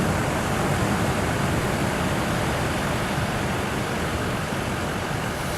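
Steady roar of Pacific Ocean surf, an even rushing noise with no breaks.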